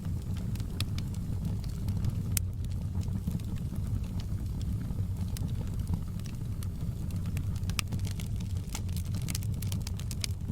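Wood fire burning in a fireplace: a steady low roar of the flames with scattered, irregular crackles and sharp pops from the burning logs.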